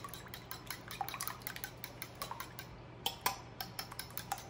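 A fork beating raw eggs in a ceramic bowl, the tines clicking quickly and unevenly against the sides, with a few louder taps.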